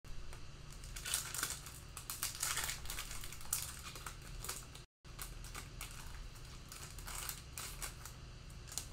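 Foil wrappers of Panini Mosaic football card packs crinkling as the packs are handled and opened by hand, as a dense run of small, irregular crackles. The audio cuts out for a moment near the middle.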